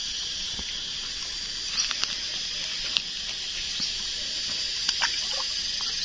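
Steady high-pitched insect chorus, with a few scattered sharp clicks and rustles from a collapsible net shrimp trap being handled in dry grass at the water's edge.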